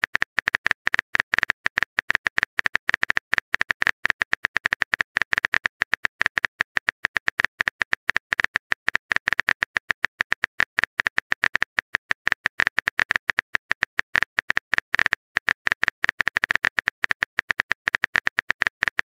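Rapid keyboard-typing sound effect of a texting-story app: a steady run of short, sharp clicks, several a second, one per letter as a message is typed, with a brief pause near the end.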